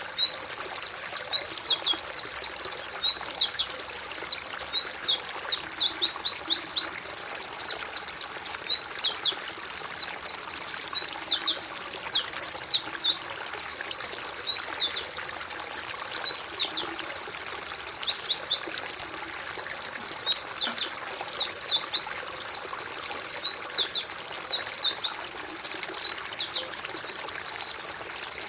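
White-eyes (pleci) singing: a continuous string of short, high, quickly falling chirps over a steady trickle of water.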